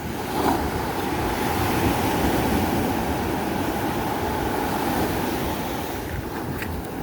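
Steady rushing of wind and sea surf, swelling a little in the middle.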